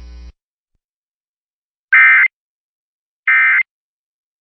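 Emergency Alert System end-of-message (EOM) data bursts: two short, loud, harsh warbling tone bursts of SAME digital code, about a second and a half apart, signalling the end of the alert. A steady hum cuts off just before them.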